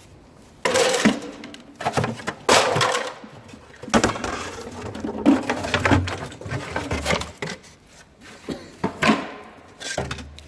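Objects being rummaged through inside a broken-open old safe: a series of sharp clatters and knocks with scraping in between as the contents and a small metal lockbox are handled.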